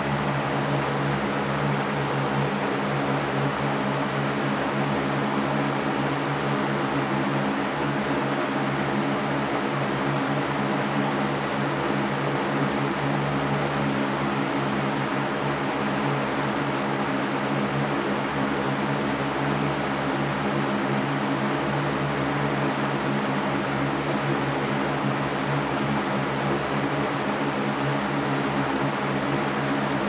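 Large metal-caged Mastercraft fan running steadily: an even rush of air with a low steady hum underneath.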